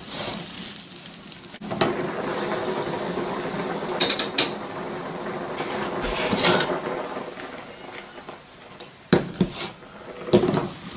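A saucepan of rice and water coming to the boil on an electric hob, bubbling steadily under a rattling glass lid. Several sharp clinks of the lid against the pan rim as it is lifted off and set back on.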